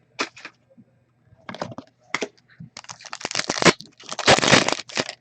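Crackling and crinkling of trading-card packaging being handled, with scattered small crackles early and two louder, denser spells of crinkling about three and four seconds in.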